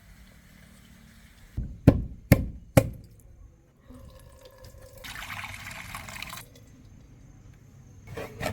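A machete striking a mature brown coconut three sharp knocks in quick succession, then liquid pouring out for about a second and a half as the shell is split, the coconut water draining.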